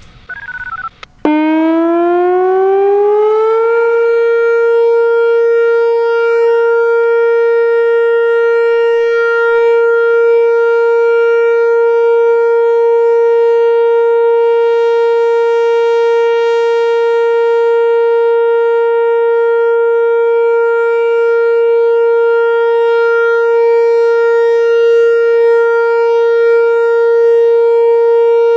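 Whelen WPS-4004 electronic outdoor warning siren sounding its steady alert tone. It starts abruptly about a second in, climbs in pitch for a couple of seconds, then holds one loud, steady, rich-toned note.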